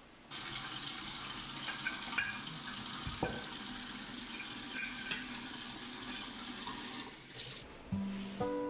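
Water running from a kitchen tap into a sink in a steady rush, with one knock about three seconds in. The water stops near the end as soft background music comes in.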